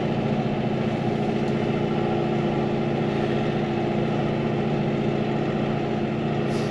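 Farm tractor engine running steadily at an even speed while plowing snow.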